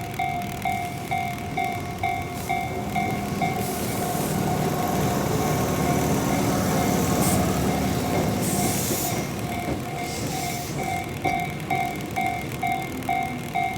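Japanese level-crossing alarm bell ringing in quick, even electronic dings, about two to three a second, throughout. A Tobu Railway train passes through the crossing: its rushing wheel-and-rail noise builds a couple of seconds in, is loudest around the middle and fades away again before the end.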